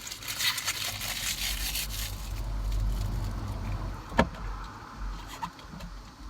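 Handling noise as a replacement shift knob is pushed and worked down onto the gear shifter: rustling of the protective plastic film on the knob, then a low rumble of hand pressure, with one sharp plastic click about four seconds in.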